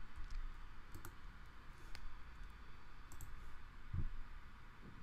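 A few separate computer mouse clicks, about a second apart, over a low steady background hum.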